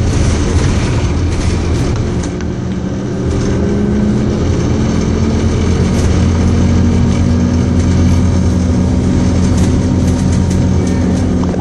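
Scania OmniCity single-deck bus heard from inside the saloon while moving: a steady low engine note over road noise and small rattles, dipping briefly about two seconds in, then climbing slightly as the bus picks up speed.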